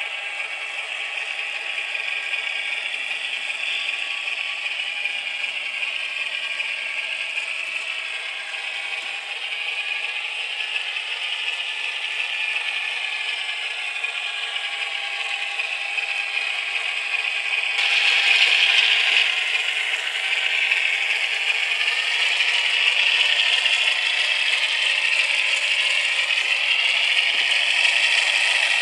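QSI sound decoder in an HO scale EMD AC4400 model locomotive playing its diesel engine sound through a tiny speaker: a steady, tinny, rattly running sound with no bass. It grows louder in the second half, with a brief louder burst about two-thirds of the way through.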